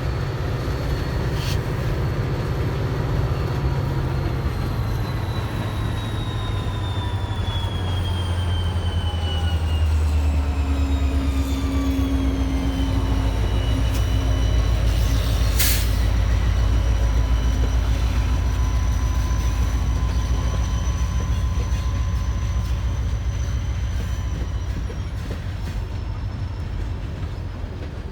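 Canadian Pacific ballast train rolling by with a low rumble that swells and eases. Thin high squeals from the wheels slowly fall in pitch, with a couple of sharp clicks.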